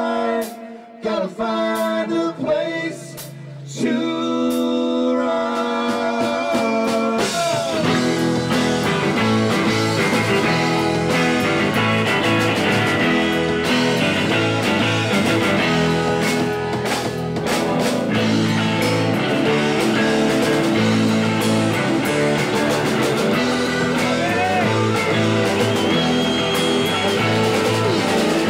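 Live rock band with electric guitars, bass and drums. The band thins to a few held notes for several seconds near the start, then comes back in full about seven seconds in.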